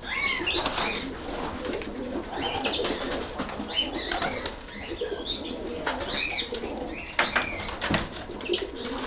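Pigeons in a loft cooing and moving about, with wing flaps and scrabbling heard as short sharp noises. Repeated short, high-pitched arching calls come over the cooing.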